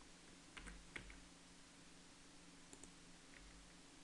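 Near silence: room tone with a faint steady hum and a few soft clicks from the computer's keyboard and mouse, the clearest about a second in.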